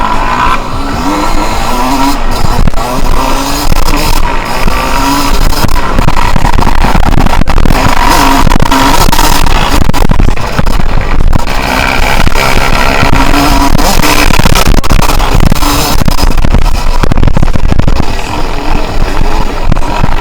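Yamaha YZ125 two-stroke dirt bike engine revving up and down as it is ridden, with music mixed over it.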